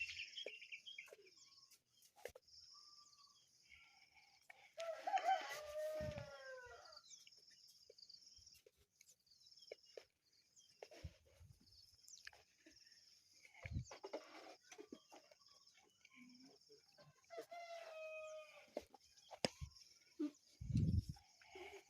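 A rooster crowing faintly twice, about five seconds in and again near eighteen seconds, over a faint high chirring, with a few low thumps.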